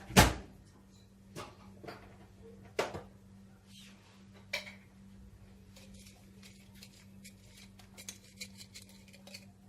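Spoon and dishes knocking and clinking as spices are spooned into a pot of chopped vegetables. One sharp knock comes right at the start, then a few more knocks over the next few seconds and a run of light clicks and taps.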